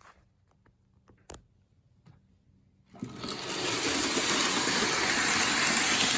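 Lionel O-gauge starter-set train running on its track: a steady whirring rumble that comes up about three seconds in, after a few faint clicks.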